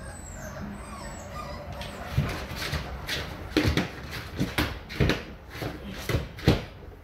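A three-week-old XL American Bully puppy whimpering faintly, then giving a run of about ten short, sharp cries, the loudest near the end, while being handled for an oral dewormer.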